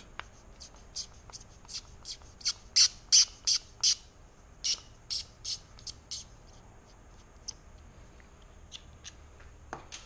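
Phillips screws squeaking as a screwdriver backs them out of a plastic motorcycle turn-signal lens housing. The short, high squeaks come in quick series through the first six seconds, then only now and then.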